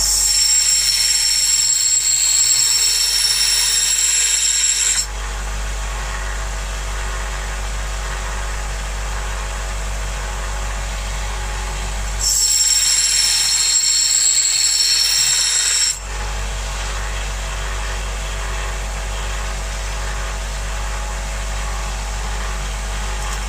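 Electric sander running steadily while a steel axe head is pressed against it in passes to put an edge on the blade: a bright, high-pitched grinding note comes in for about four to five seconds at the start and again in the middle, with the motor running on its own in between.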